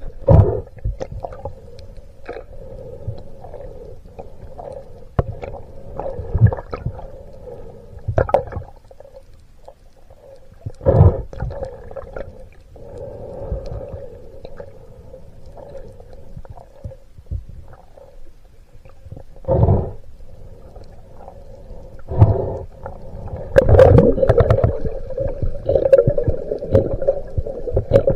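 Muffled underwater sound through a waterproof camera housing: a steady low hum, broken by irregular dull thumps and knocks, busier near the end.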